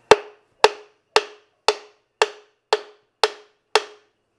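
Hammer blows on the metal of a Subaru boxer engine block as its two halves are driven apart: eight even strikes, about two a second, each with a short metallic ring.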